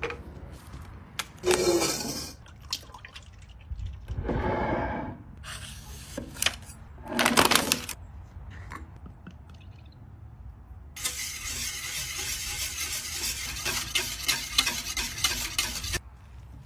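Food-prep handling sounds: a few separate short knocks and rustles, then about five seconds of brine being stirred and sloshed in a stainless steel mixing bowl, stopping abruptly.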